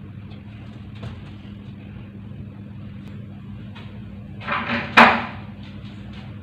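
Steady low room hum with faint clicks, then a short scraping rustle ending in a sharp knock about five seconds in.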